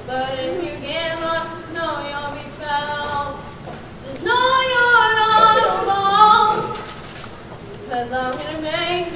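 Young children's voices singing a song together: a run of short notes, then a louder, long-held phrase about four seconds in.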